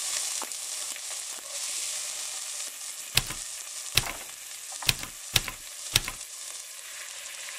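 Chopped onion sizzling in hot olive oil in a pot, stirred with a wooden spoon. From about three seconds in come five sharp knocks of the spoon against the pot and the plate as the chicken pieces are pushed in.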